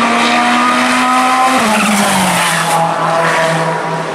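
GT3 race car engine running at high revs with a steady note that drops in pitch about halfway through and settles lower.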